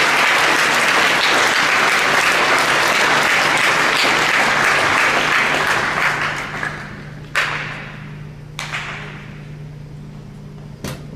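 Audience applauding, the clapping dying away about six seconds in. After that come three sharp knocks, spaced a second or two apart.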